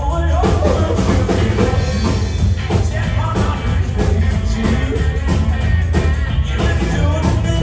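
Live rock and roll band playing: electric and acoustic guitars, upright double bass and drums, with a lead voice singing over a steady beat.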